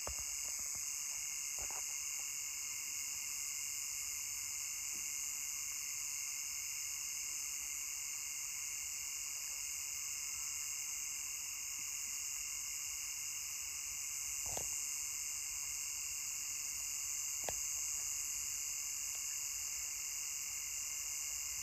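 Steady night chorus of insects, a dense high-pitched trilling in several layers that never lets up. Two faint knocks come in the second half.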